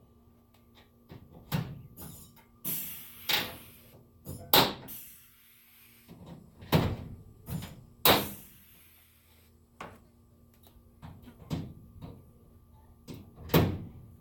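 Irregular sharp knocks and clanks, about a dozen, with a few much louder ones near the middle and near the end. A faint steady hum lies underneath.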